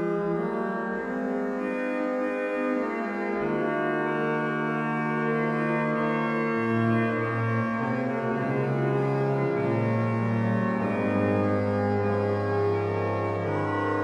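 Sampled Müller pipe organ of the Grote Kerk in Leeuwarden playing early-Baroque polyphony in mean-tone tuning, with several sustained voices at once. Low bass notes enter about three and a half seconds in and move to new pitches several times.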